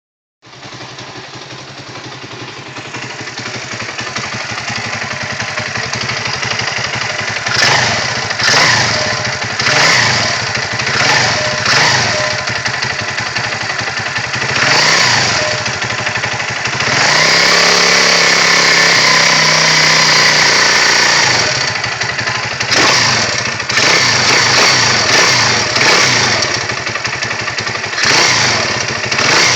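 YCF 125 pit bike's air-cooled single-cylinder four-stroke engine idling, then revved in short repeated blips with one higher rev held for about four seconds midway. Its bottom end makes a rattle that the owner suspects is the clutch and that does not affect how the engine runs.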